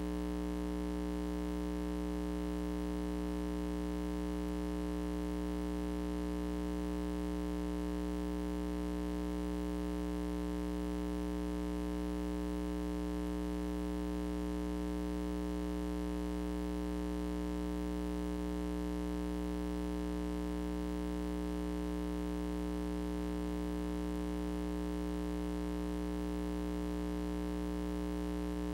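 Steady electrical mains hum with a stack of buzzing overtones, unchanging throughout; no sound from the stage performance comes through.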